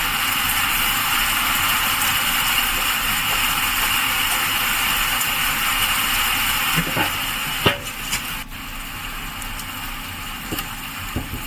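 Steady hiss of heavy rain. A sharp click comes about two-thirds of the way in, after which the hiss is quieter.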